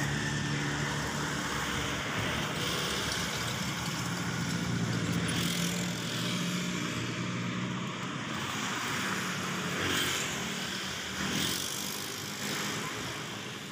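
Road traffic: motor vehicle engines and tyres running along a road, a steady rush with a low engine hum that comes and goes.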